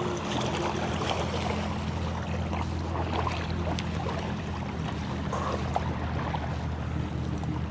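Steady low engine hum over wind and water noise, with scattered small clicks.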